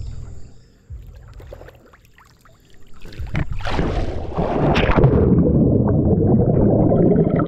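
Faint low rumble of pool water moving at the camera, then from about four seconds in a loud, muffled rushing and gurgling of water as the camera goes under the surface.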